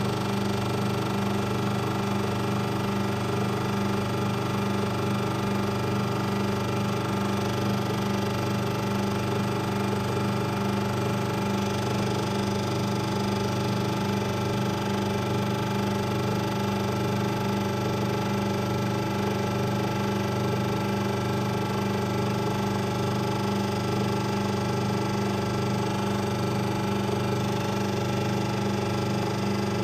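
Compression testing machine running with a steady mechanical hum as it loads an upright wooden block parallel to the grain; no cracking of the wood is heard.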